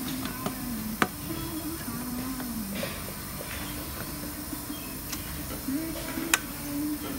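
Steady hiss with two sharp metal clicks, about a second in and again near the end, as a steel pail's lid is pressed down by hand onto its rim.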